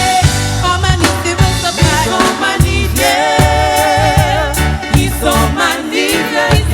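Gospel band music with bass and drums at a steady beat, and a singing voice holding long wavering notes from about halfway through.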